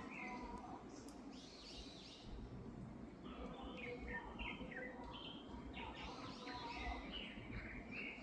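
Yellow-rumped flycatcher singing: short phrases of quick notes that drop in pitch, with a pause of about a second early on before the song picks up again.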